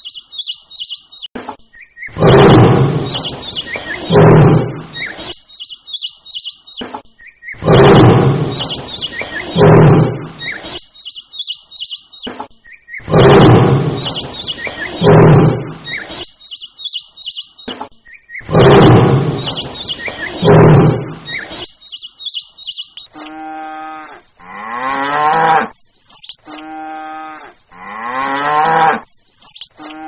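A tiger roaring: four pairs of loud, rough roars at even intervals, with birds chirping in the gaps. Late on, cows moo several times, long calls that bend in pitch.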